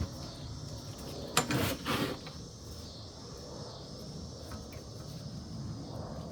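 A short clatter of knocks and rattling about a second and a half in, over a steady background hum and hiss.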